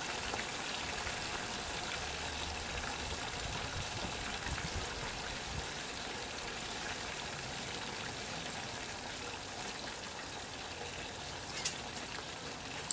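Potato fries deep-frying in hot oil: a steady sizzle, with one short sharp click near the end.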